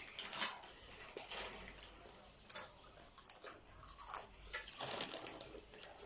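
Eating sounds of people working through spicy instant noodles: irregular soft slurps, chewing and small clicks.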